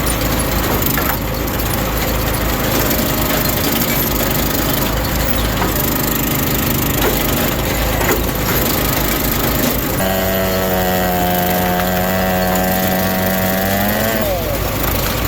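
Engine-driven firewood splitting machinery running while wood splits and splinters. About ten seconds in, a steady whine with many overtones starts, rises in pitch and cuts off after about four seconds.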